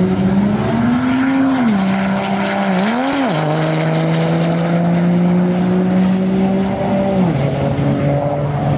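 Ram pickup's Cummins turbo-diesel at full throttle on a drag-strip pass. Its pitch climbs and drops back twice in the first three or four seconds as the transmission shifts, holds level for about four seconds, then falls away near the end.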